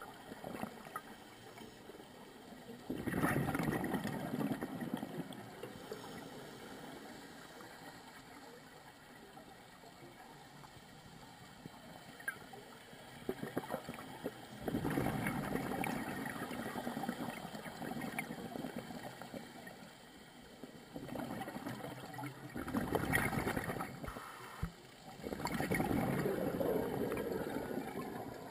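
Scuba regulator exhaust bubbles heard underwater. Each time the diver breathes out there is a burst of bubbling lasting a couple of seconds, about five times in all, with quiet stretches of faint hiss between the breaths.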